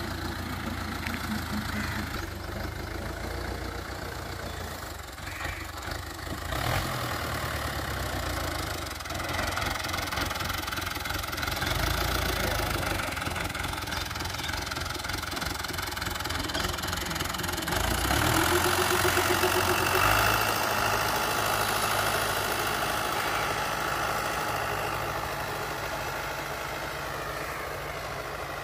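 Fiat 640 tractor's diesel engine running steadily under load as it pulls a disc implement through the field. It grows louder for a few seconds about two-thirds of the way through, then eases off.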